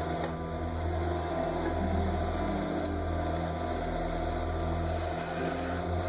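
Central Machinery wood lathe running steadily, with a hand-held turning tool cutting the spinning workpiece.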